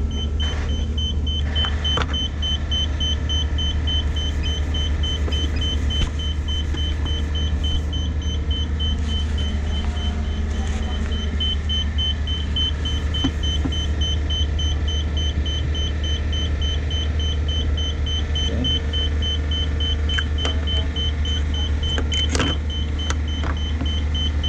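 Steady low machinery hum with a rapid, regular high electronic beeping, about three beeps a second.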